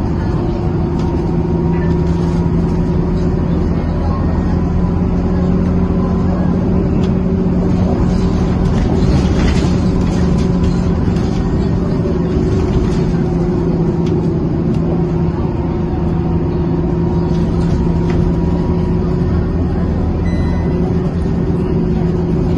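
Inside a Scania K230UB single-deck bus under way: steady engine and road noise with a loud, unusual steady drone from the radiator cooling fan.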